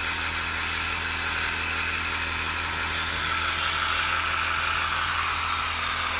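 Multilaser 12 V portable mini air compressor running steadily while inflating a car tyre, a buzzing electric-motor whir with vibration. It works against rising pressure near 30 psi, and its whine grows slightly louder about halfway through.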